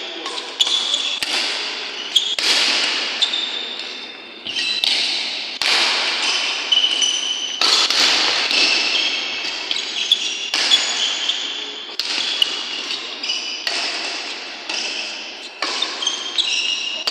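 Badminton rally: sharp racket hits on the shuttlecock and footfalls, about one a second, each echoing in a large hall, with short high squeaks of shoes on the wooden court floor.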